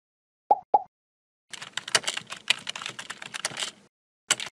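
Computer keyboard typing sound effect: a quick run of key clicks lasting a little over two seconds as text is typed into a search bar. Two short blips come before it, and a single click comes near the end.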